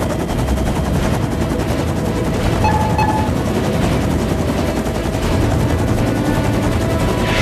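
Rotor blades of a UH-1 'Huey' helicopter chopping in a fast, steady beat, heard close up from the open cabin door while it hovers.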